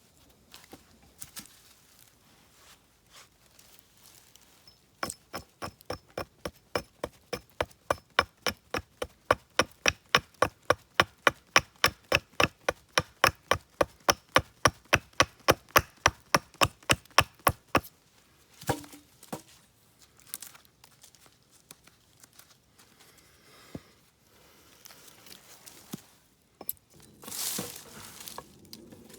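A tool striking wood in a fast, even rhythm of sharp knocks, about three or four a second for some twelve seconds, followed by a few scattered knocks.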